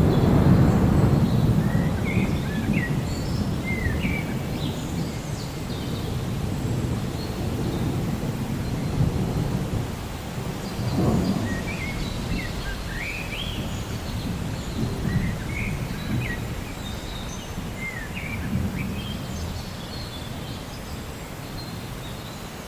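Steady rain with rolling thunder: the loudest rumble comes right at the start and fades, with smaller rumbles about halfway through and near the end. Small birds chirp now and then above the rain.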